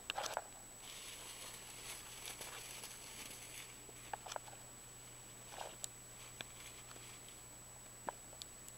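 Cat licking the inside of a plastic bag: faint crinkling of the plastic, with scattered small ticks and clicks.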